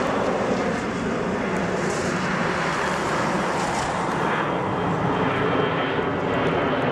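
Airbus A320-214's two CFM56-5B turbofan engines running at climb power as the jet climbs away overhead in a go-around: steady jet engine noise.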